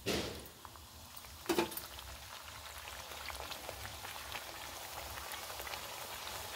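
A poori deep-frying in hot ghee in a kadhai: a loud hiss as it goes into the oil, a second sharp hiss about a second and a half in, then a steady crackling sizzle that builds slightly.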